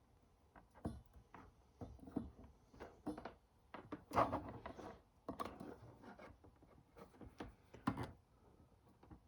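Irregular small clicks, knocks and rustles of small objects being handled on a work surface, with the loudest knocks about four seconds in and again near eight seconds.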